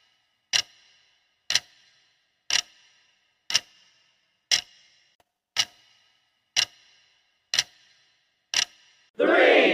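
Clock-tick sound effect of a countdown timer, one crisp tick each second with a short ringing tail, nine ticks in all. Just before the end a loud burst of shouting voices breaks in.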